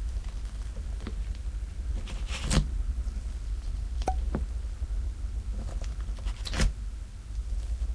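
Slime being squished and pressed by hand, with a few sharp sticky pops and crackles, the loudest about two and a half seconds in and again near the end, over a low steady rumble.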